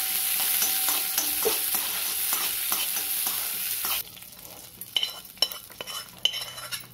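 Cashews, almonds and raisins sizzling in hot ghee in a steel kadhai, with a spoon stirring and scraping them. About four seconds in the sizzle cuts off suddenly, and a few light metal clinks follow as the fried nuts are tipped from the pan into the pot of kheer.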